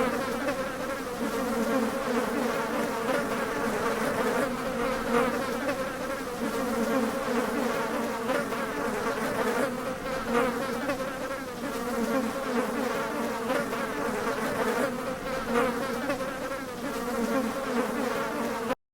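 Flies buzzing: a continuous droning hum that wavers in pitch as they fly about, cutting off suddenly at the very end.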